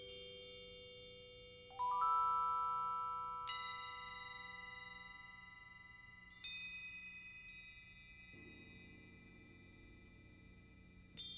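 Tuned metal mallet percussion: single high bell-like notes and small chords struck a few seconds apart, each left to ring out and die away slowly. The loudest is a lower chord about two seconds in.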